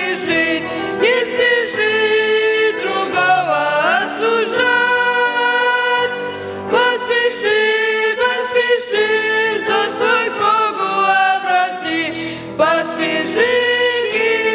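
A group of boys singing a hymn together into microphones, with piano accompaniment.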